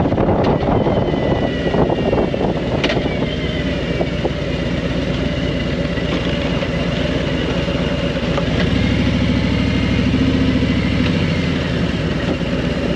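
Motorcycle engine running at a steady speed.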